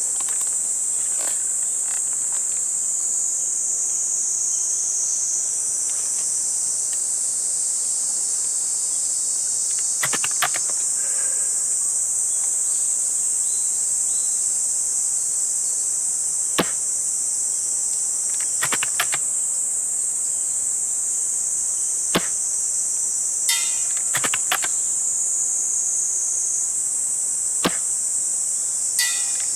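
Steady high-pitched insect chorus, crickets or similar, with a short sharp click every few seconds: shots and bolt work of a spring-powered VSR-10 airsoft sniper rifle.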